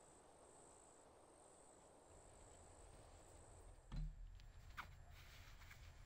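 Faint crickets chirping, stopping a little after halfway through. Then a single low thump about four seconds in, followed by a few faint knocks.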